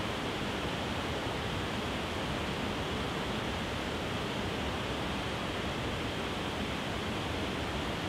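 Waterfall cascading over a series of low rock ledges: a steady, unbroken rush of water.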